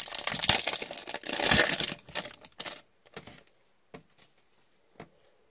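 Foil trading-card pack torn open and crinkled by gloved hands, a dense crackly rustle for about two seconds. After that come a few light clicks as the cards are slid out and handled.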